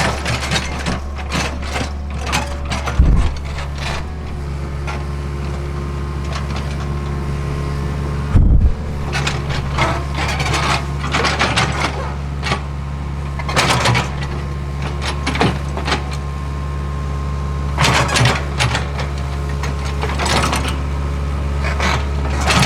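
Hitachi ZAXIS75UR compact excavator's engine running steadily, with scattered knocks and scrapes of the machine working the ground and two heavy thumps, about three and eight seconds in.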